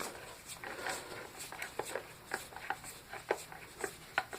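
Light, irregular clicks and scrapes of metal parts and hand tools being handled while dismantling a compressor motor, a few small knocks a second.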